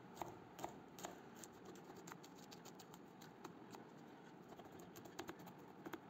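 Faint knife strokes on a plastic cutting board as a cabbage leaf is cut: separate taps about two a second at first, then a quicker run of lighter ticks, and a few more taps near the end.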